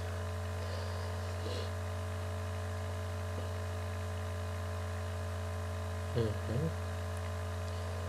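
Steady electrical hum and hiss from a noisy microphone setup. The narrator says he has not yet worked out the cause. A man's voice makes a brief sound about six seconds in.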